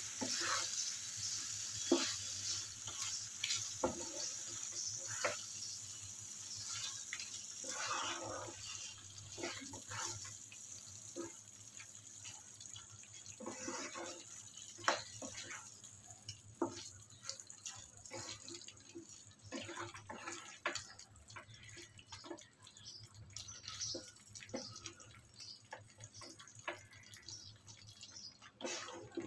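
Chicken in a thick yogurt-and-cream gravy sizzling in a frying pan while a spatula stirs it, with frequent scrapes and knocks against the pan. The sizzle fades after the first several seconds.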